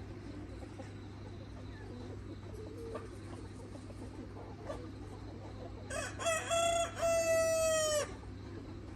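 A red Mía rooster crowing once, about six seconds in: short broken notes leading into a long held note that cuts off after about two seconds, over a steady low hum.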